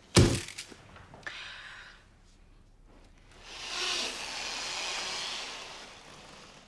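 A single sudden thump with a short decay. After a quiet stretch, a soft hiss swells up and fades away over about three seconds.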